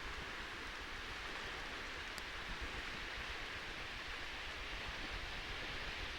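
Steady rushing of the South Tyne river in flood, a smooth even roar of fast brown water.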